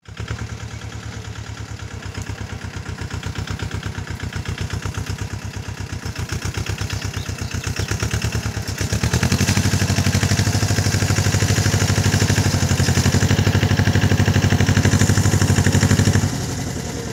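Mahindra Jivo 245 DI compact tractor's two-cylinder diesel engine running under load as it works the soil. The engine pulses steadily and grows louder about halfway through, then drops off suddenly just before the end.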